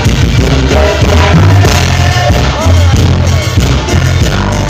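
Live cumbia band playing loud through stage speakers, with a heavy, pulsing bass line.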